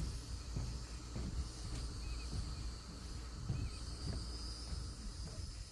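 Steady high-pitched drone of insects, with a few faint short bird chirps about two seconds in and again past the middle, over a low rumble.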